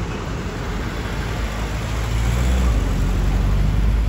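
A motor vehicle's engine running close by, its low rumble growing louder about two seconds in.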